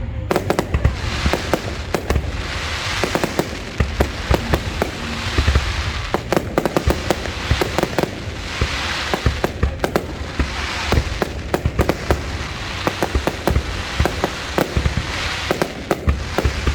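Fireworks going off: a dense run of sharp bangs, with swells of crackling hiss every couple of seconds.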